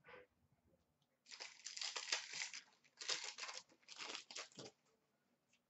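Hockey card pack wrapper being torn open and crinkled by hand, in three rustling bursts starting about a second in.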